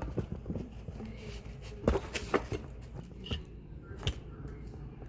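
A few sharp clicks and knocks of tableware being handled at a table, over faint background voices.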